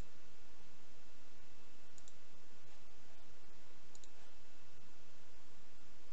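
Faint computer mouse clicks, quick double ticks about two seconds apart, over steady microphone hiss.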